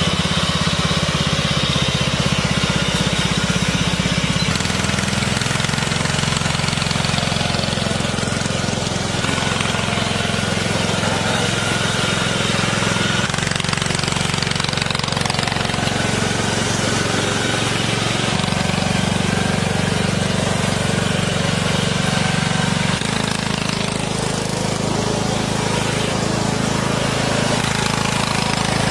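Craftsman riding lawn mower's engine running steadily as it drives, a low, even engine note whose pitch steps up or down a few times.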